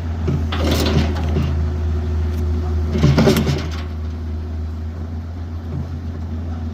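Excavator's diesel engine running steadily under load from its hydraulics, with two louder bursts of noise, about a second in and again around three seconds.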